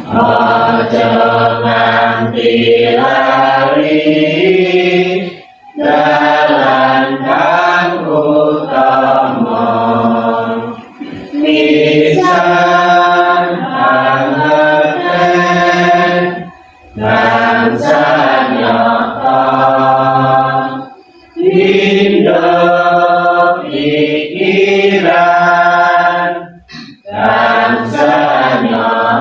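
A group of mostly women's voices singing a Buddhist devotional song together, in phrases of about five seconds with short breaks for breath between them.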